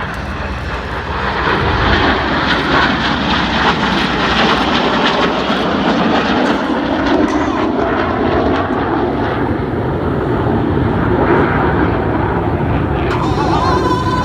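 Jet noise from a formation of BAE Hawk T1 trainers flying a low display pass, a loud steady roar that swells about a second in.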